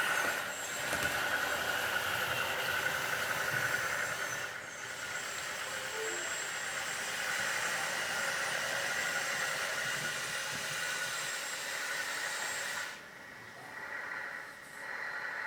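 A 1/14 scale RC hydraulic bulldozer running as it pushes dirt: its hydraulic pump and track motors whining under the sound board's simulated engine sound, with a steady hiss. The sound drops sharply about thirteen seconds in.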